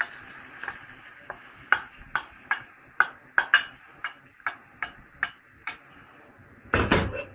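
Wooden spoon knocking repeatedly against a ceramic plate, about two to three taps a second, as chopped filling is scraped off into a frying pan, over a faint steady frying hiss. Near the end comes one louder, brief clatter.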